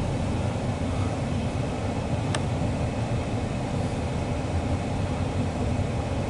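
Loaded CSX coal train rolling past at close range: a steady, even rumble of wheels on rail.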